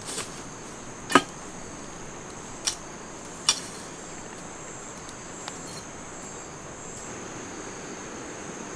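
Insects chirring in a steady high-pitched drone, with three sharp knocks or snaps about one, two and a half, and three and a half seconds in, the first the loudest.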